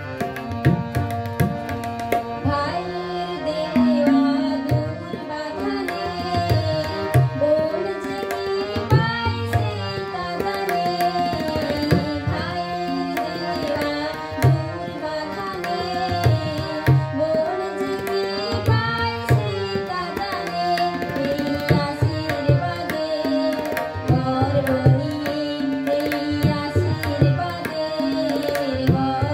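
A woman singing a Bengali song to her own harmonium, with a drum keeping a steady beat underneath.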